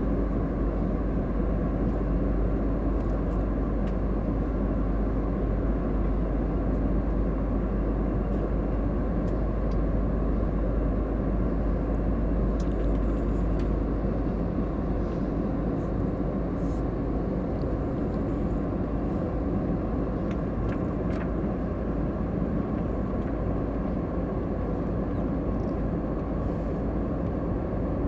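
Steady cabin noise of a jet airliner in flight, heard from a window seat: a constant deep rush of jet engines and airflow, easing slightly about halfway through.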